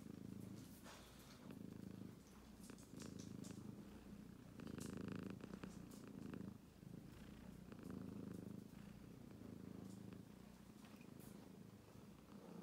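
A ginger-and-white domestic cat purring softly, a low rumble that swells and eases with each breath, roughly once a second.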